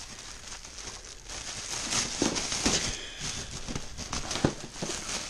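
Cellophane gift wrap crinkling and crackling in irregular bursts as an Alaskan Malamute bites and tugs at it, with one sharper snap near the end.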